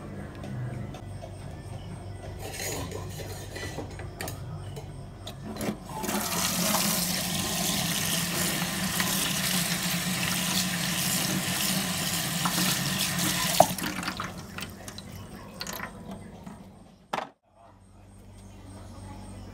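Tap water running into a metal sink and over sweet peas in a wire strainer as they are rinsed, starting a few seconds in and stopping after about eight seconds.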